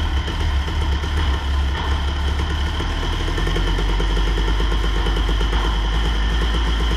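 1996 Kawasaki KX250's single-cylinder two-stroke engine running at a steady idle, its note shifting lower about three seconds in.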